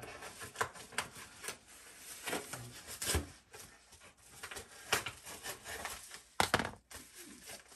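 Cardboard shipping box being handled and opened by hand: scattered rustles, scrapes and knocks, with a couple of sharper snaps about six and a half seconds in.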